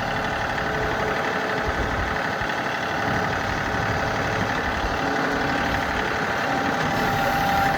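Tractor engine running steadily, a constant drone with no clear change in speed.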